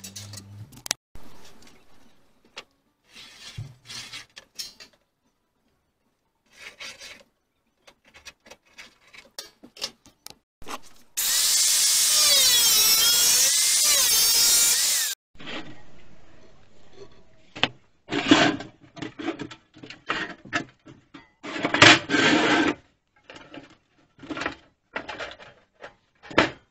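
Angle grinder with a cutting disc slicing through sheet steel: one loud cut of about four seconds, roughly eleven seconds in, its pitch wavering as the disc bites. Before and after it, scattered knocks and scrapes of metal being handled.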